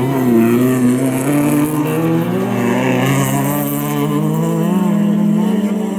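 Rallycross cars' engines racing at high revs on a dirt track, the engine note climbing steadily in pitch as the cars accelerate.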